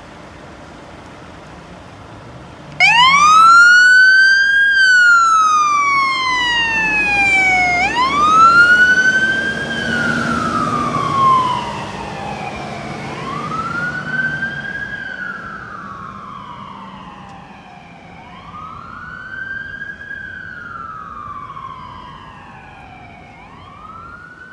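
Fire engine's siren sounding a wail, starting suddenly about three seconds in. Each cycle rises quickly and then falls slowly, about once every five seconds, and the siren grows fainter as the truck drives away. The truck's engine rumbles under the siren for a while after it starts.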